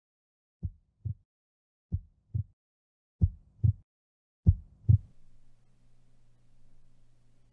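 Heartbeat sound effect: four slow lub-dub double thumps, each pair louder than the last, followed from about five seconds in by a faint steady low hum.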